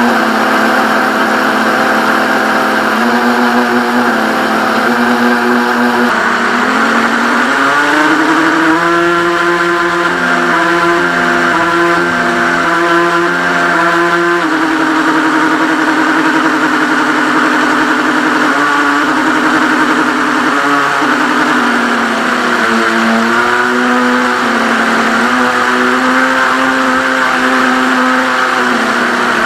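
Reely Wavebreaker RC speedboat's motor whining loudly, its pitch rising and falling repeatedly with the throttle, including a run of quick dips, over a steady hiss of water and wind.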